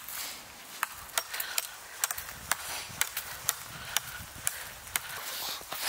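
Knife chopping small pieces of firewood: a run of sharp wooden knocks, about two to three a second.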